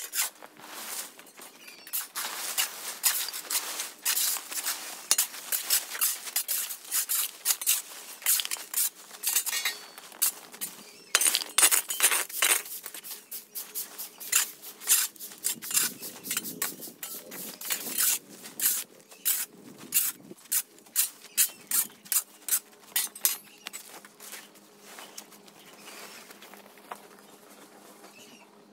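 Irregular clatter of hard objects knocking and clinking together, dense at first and thinning out toward the end.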